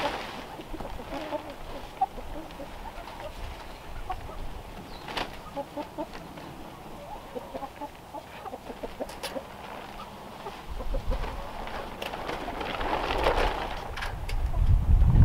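Domestic hen clucking in short, scattered notes. Near the end, tarp rustling and a rising low rumble of wind on the microphone.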